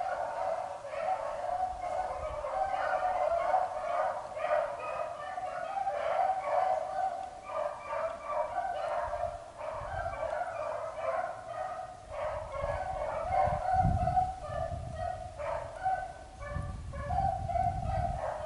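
A pack of beagles baying without a break, several voices overlapping: the dogs are giving mouth as they run a rabbit's track. A few low rumbles come in during the second half.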